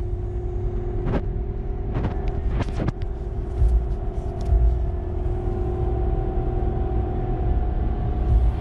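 Road and engine noise inside the cab of a lifted Ram 1500 on 35-inch tires cruising at highway speed: a steady low rumble with a constant hum, and a few short knocks or clicks between about one and three seconds in.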